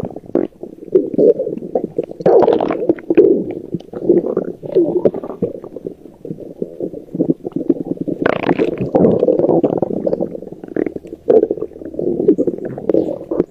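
Stomach growling and gurgling: continuous churning rumbles dotted with many small pops and clicks, swelling louder about two seconds in and again about eight seconds in.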